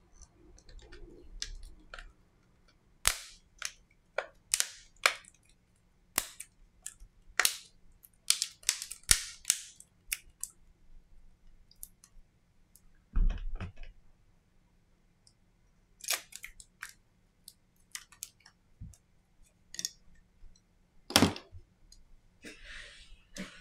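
Plastic back cover of a Samsung Galaxy M20 snapping onto the phone's frame: a run of sharp clicks as its clips are pressed home around the edges, several a second at times. A dull knock and a few scattered clicks follow later.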